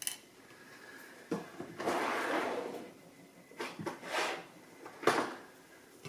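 Small lock parts and tools being handled while a padlock is taken apart: several sharp clicks and knocks, the loudest near the end, with a longer rustle and scrape about two seconds in.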